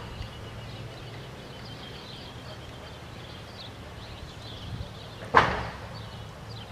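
Quiet open-air ambience: faint, scattered bird chirps over a steady low background rumble. One sharp crack stands out about five seconds in.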